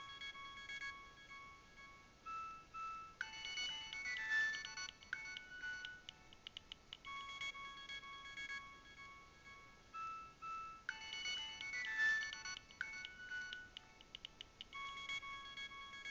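Nokia 7200 mobile phone ringtone playing: a synthesized melody with several notes at once. A phrase of nearly eight seconds plays through twice, each time with a run of quick clicking percussion.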